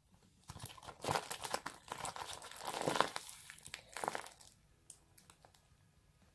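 Homemade paper-and-sellotape squishy squeezed in the hands, its taped paper crinkling in uneven bouts, loudest about a second, three seconds and four seconds in, then stopping.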